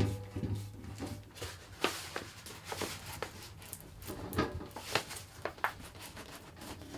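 Irregular light knocks, clicks and rustles of the parts of a Record Power DX1000 dust extractor being fitted together by hand, over a low steady hum.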